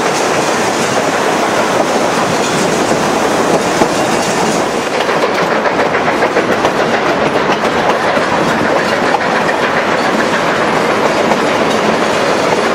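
Narrow-gauge passenger train running along the track: a loud, steady rolling din with the clickety-clack of wheels over the rail joints.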